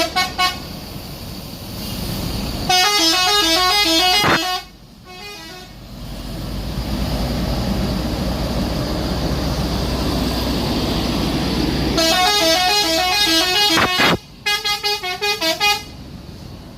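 Indonesian bus 'telolet' musical horn, a set of air horns playing a fast stepping melody in bursts: a short one at the very start, a second about three seconds in, then a longer one from about twelve seconds in that breaks briefly and plays again. Between the bursts, a bus engine runs.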